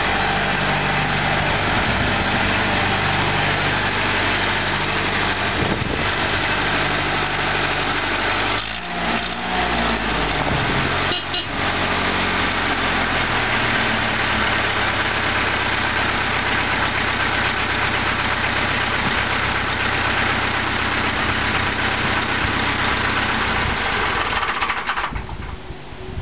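1958 McCormick International B-275 tractor's four-cylinder diesel engine running steadily at low speed, then switched off and dying away near the end.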